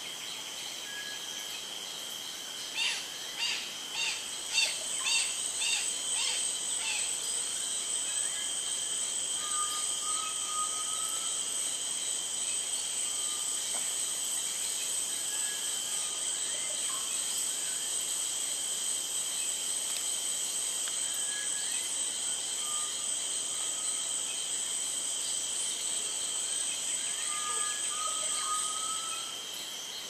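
Rainforest ambience: a steady high-pitched drone of insects, with a run of about eight loud repeated call notes a few seconds in and scattered short bird chirps. The drone drops off near the end.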